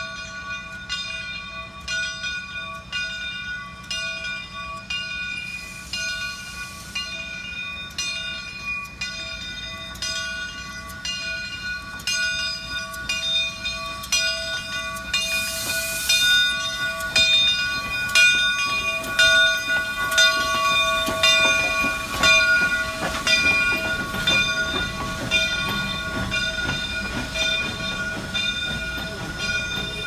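Steam locomotive bell on Southern 2-8-0 No. 401, rung steadily at about one and a half strokes a second as the engine pulls in. A short burst of steam hiss comes about midway, and the rumble and clatter of the passing coaches builds near the end.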